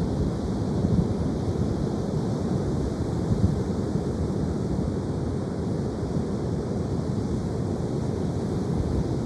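Ocean surf washing steadily, with wind buffeting the microphone as a low, gusty rumble.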